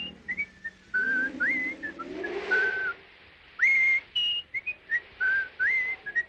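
A cartoon Smurf whistling a tune: short, clear notes, many of them sliding up into the pitch, in several phrases with brief gaps between them.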